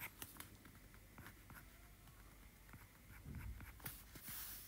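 Stylus on an iPad's glass screen: faint, irregular taps and short scratchy strokes as lines are sketched, with one longer hissy stroke about four seconds in.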